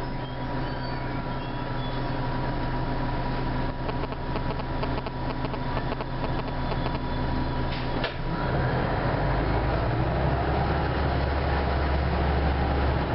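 Orion V diesel city bus engine idling, heard from inside the bus, with a steady high whine alongside; about eight seconds in the engine note turns deeper and louder as the bus begins to pull away.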